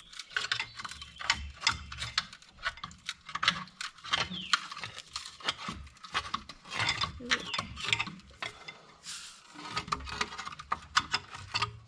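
Hand tools clinking, knocking and scraping on a car's brake parts, with many irregular sharp metallic clicks.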